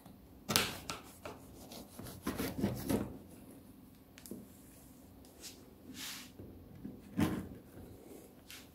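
Long kitchen knife cutting through the crisp crust of a baked crostata, in several separate scraping strokes, with the blade knocking on the wooden counter beneath.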